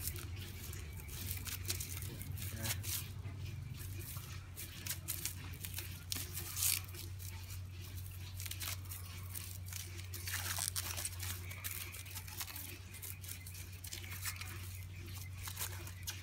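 Plastic cling film crinkling and crackling irregularly as it is stretched and twisted tightly by hand, with a few louder crackles, over a steady low hum.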